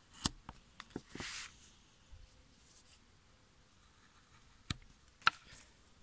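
Hand carving gouge cutting chips from the edge of a wooden board: a few sharp clicks and a short scraping slice about a second in, then two more sharp clicks near the end.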